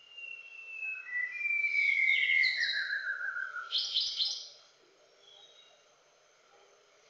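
White-browed shama singing: long whistled notes that slide downward in pitch, then a quick burst of high rapid notes, the song ending about four and a half seconds in.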